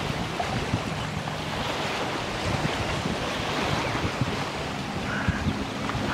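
Wind buffeting the microphone: a steady rushing noise with low rumbling gusts.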